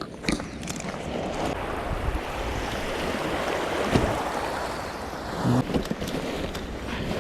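Sea waves washing onto the shore, a noisy rush that swells for a few seconds and then eases off.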